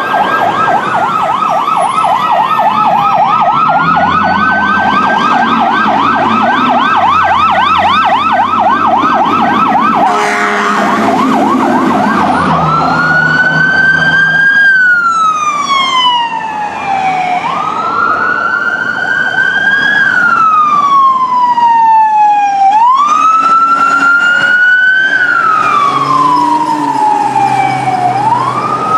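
Fire-apparatus sirens on an emergency response. A fast yelp runs for about the first ten seconds, then a short air-horn blast sounds. After that a slow wail rises and falls every few seconds, over the low rumble of the trucks' engines.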